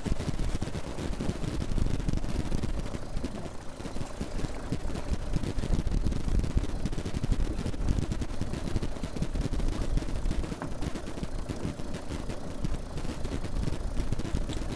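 Wind buffeting the microphone in gusts over a low rumble of choppy waves against a small fishing boat.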